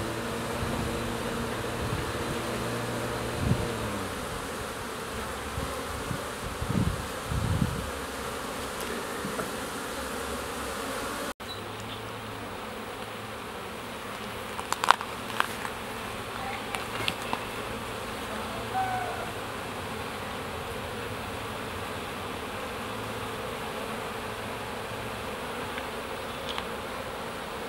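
Honeybees of a strong colony humming in a dense cloud at the hive entrances: a steady buzz of many wings during busy spring flight. A few short sharp ticks stand out about halfway through.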